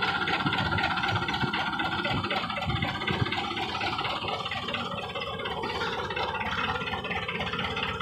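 Farm tractor's diesel engine running steadily.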